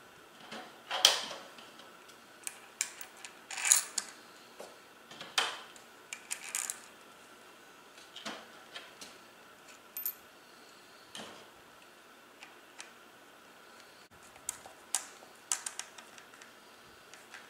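Irregular light metallic clicks and clinks of small parts and tools being picked up from a bench and fitted onto a Shimano coaster-brake rear hub during a rebuild. The two sharpest clinks come about a second in and just before four seconds in.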